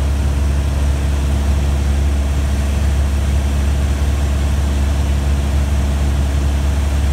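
Aircraft engine drone heard from inside the cabin in flight: a loud, steady, deep hum that does not change.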